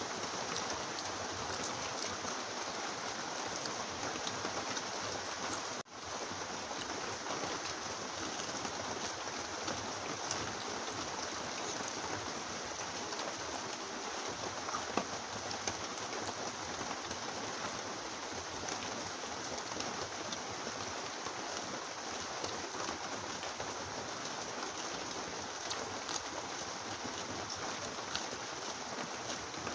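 Heavy rain falling steadily, an even hiss that cuts out for an instant about six seconds in.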